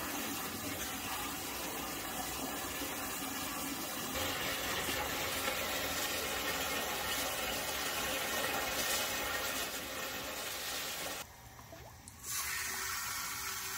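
Water from a garden hose spray nozzle pouring steadily into a plastic drum, filling it. Near the end it drops away for about a second, then resumes.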